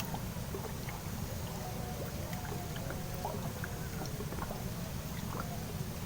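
Steady low outdoor rumble, with scattered faint clicks and ticks over it.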